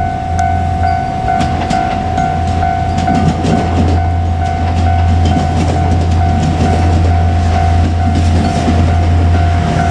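Japanese level-crossing warning bell ringing, an electronic ding repeating about twice a second, while a JR Kyushu KiHa 200 diesel railcar passes over the crossing, its wheels clicking over the rail joints.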